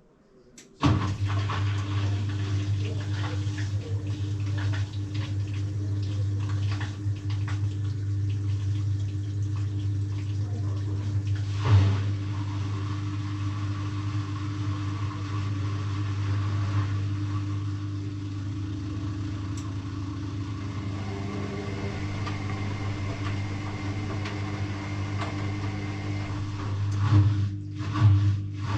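Electrolux EW6S404WU ecobubble washing machine running: a steady motor or pump hum over rushing water that starts abruptly about a second in. Near the end, rhythmic surges come in as the drum turns.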